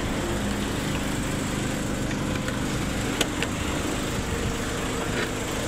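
An engine idling steadily, with a low even hum that does not change. One sharp click about three seconds in.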